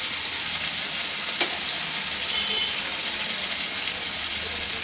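Chicken pieces frying in spice masala in a kadai over a gas flame, a steady sizzle as the chicken is slowly dry-fried, with one sharp click about a second and a half in.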